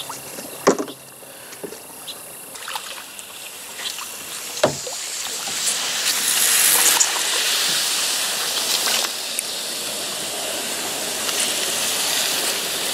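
Water sloshing and rushing around a kayak as it moves through the water, growing louder about halfway through. Two sharp knocks sound, one about a second in and one near the middle.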